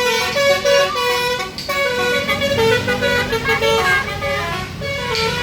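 Bus basuri horn (telolet multi-tone air horn) playing a melody in stepped, held notes, over the bus engine running.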